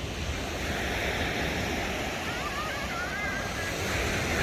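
Steady rushing of sea waves breaking on the shore, with wind buffeting the microphone. A few short warbling chirps sound around the middle.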